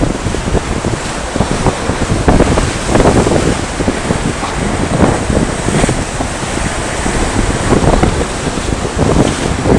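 Sea surf washing against rocky shore, with wind gusting on the microphone.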